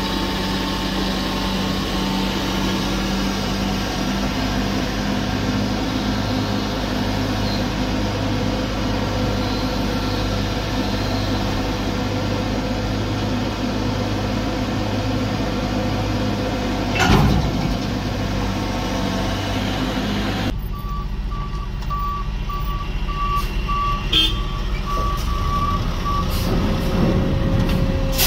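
Hyundai HX220AL excavator's diesel engine running steadily, with one sharp knock partway through. Later the sound changes abruptly, and a backup alarm gives a steady string of beeps for several seconds.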